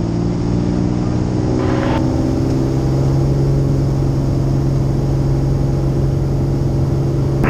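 Cessna P210's 310-horsepower piston engine and propeller at takeoff power during the takeoff roll, a steady loud drone heard from inside the cabin.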